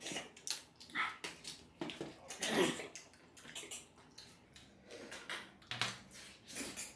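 Close-up wet eating sounds of two people eating curry and rice with their hands: irregular chewing, lip-smacking and sucking noises coming every half second or so, with a few louder slurps.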